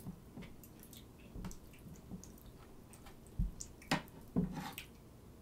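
Eating sounds: chewing and mouth smacks, with several short, sharp clicks scattered through, a few louder ones a little after the middle.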